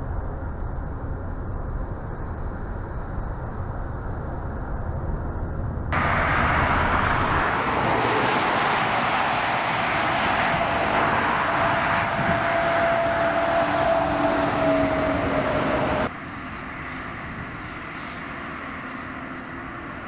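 Steady low road rumble inside a car at motorway speed. About six seconds in it cuts to the loud passing noise of a heavy tractor-trailer carrying a bridge section: tyre and engine noise with a steady whine that dips slightly in pitch as it goes by. About sixteen seconds in it drops abruptly to a quieter, even hum of distant traffic.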